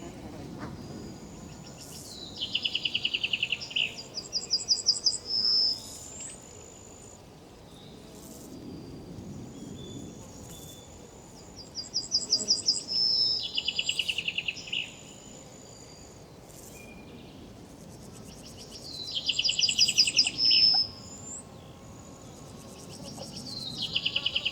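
A songbird repeats a fast trilled song of two or three parts, each about three seconds long, roughly every eight seconds, and it is the loudest sound. Beneath it run a steady high insect buzz with scattered ticks and the low rush of the river.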